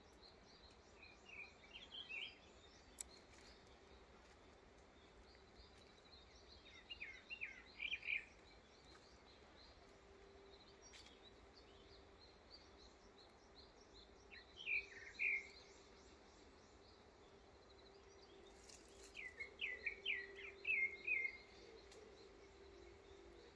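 A small bird gives four short bursts of quick, falling chirps, several seconds apart, over fainter steady high-pitched chirping in the background. A faint low hum runs through the second half.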